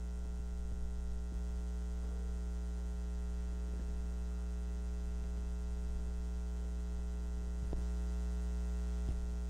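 Steady low electrical mains hum with a buzzy overtone running under the recording, with a few faint clicks.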